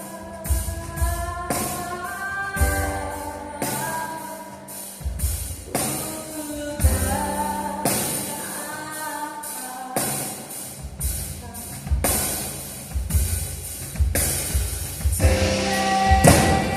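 Live band music: a woman singing a slow melody over a drum kit, with piano and keyboards.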